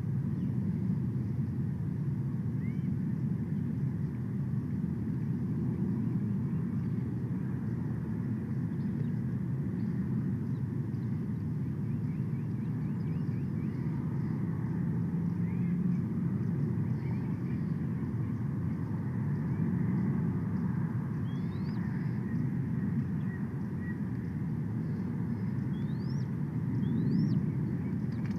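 Outdoor ambience: a steady low rumble, with small birds giving faint, quick rising chirps now and then, more of them near the end.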